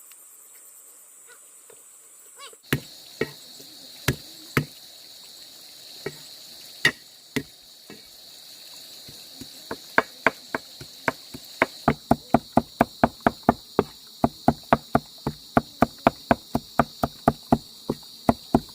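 Sharp knocking strikes, a few scattered at first, then a steady run of about three a second from about ten seconds in, over a constant high chirring of insects.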